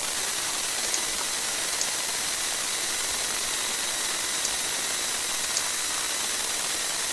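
Steady hiss of the recording's background noise, with a few faint, short clicks spread through it, as of a computer mouse clicking through on-screen dialogs.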